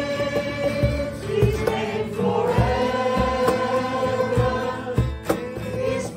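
Voices singing a Christmas hymn in long held notes, accompanied by strummed acoustic guitar and a steady beat of about two low thumps a second on a cajon.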